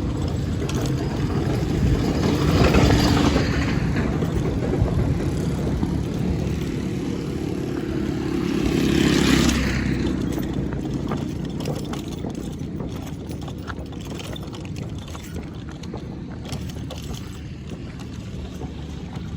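Motor vehicle engines running, with two vehicles passing close, about three seconds in and again around nine seconds. It then eases to a lower steady rumble.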